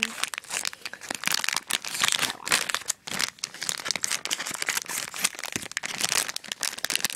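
Snack wrapper crinkling and crackling as it is handled and opened, dipping briefly about three seconds in.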